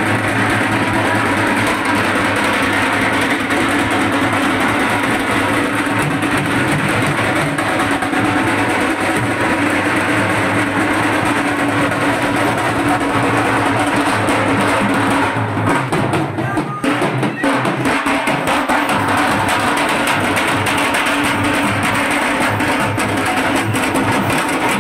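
Loud, continuous teenmaar drumming, a dense driving beat that thins out briefly about sixteen seconds in.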